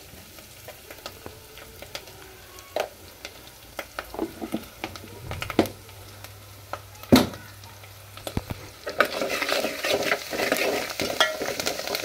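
Metal spoon clinking and scraping in an aluminium pot of tempering (oil with mustard seeds, green chillies and salt) on a gas stove, with oil sizzling underneath. The first part holds scattered light clinks and one sharp knock about seven seconds in; from about nine seconds, brisk stirring brings a louder run of scraping and sizzling.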